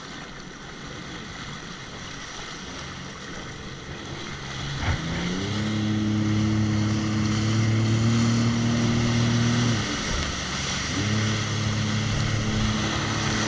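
Jet ski engine over wind and water noise: about five seconds in it revs up to a steady note. Near ten seconds it eases off, then picks up again a second later and runs steadily.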